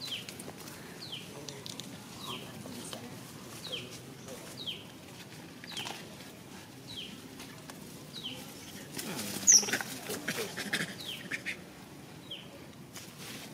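A bird calling over and over: short high notes that fall in pitch, about one a second. About nine seconds in there is a louder, noisier stretch of a couple of seconds with a sharp high squeak.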